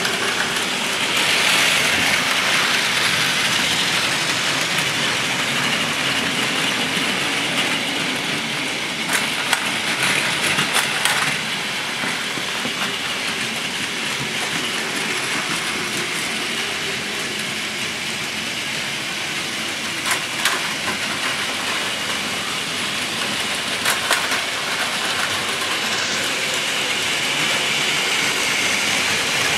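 Several battery-powered Plarail toy Shinkansen trains running on blue plastic track: a steady whirring and rattling of small motors and wheels on the plastic rails, with a few sharp clicks near the middle and later on.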